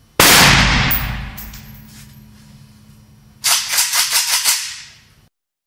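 R4 assault rifle (5.56 mm) firing: one loud shot that rings out and fades over about two seconds, then a quick string of about six sharp reports in just over a second.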